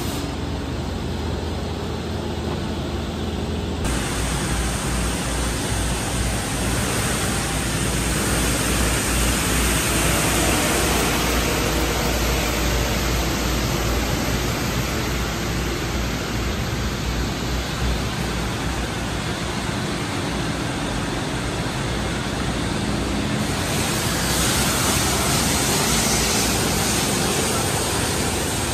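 Steady outdoor street noise under an elevated subway line: an even hiss across the whole range, with a low rumble that comes in about four seconds in and holds.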